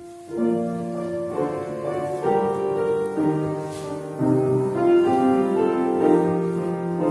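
Keyboard playing the instrumental introduction to a children's Easter song: held chords that change about once a second.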